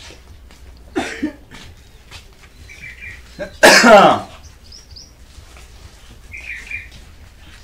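Small birds chirp now and then in the background. About halfway through, a man lets out one loud, sudden, cough-like burst that falls in pitch, and a shorter, softer burst comes about a second in.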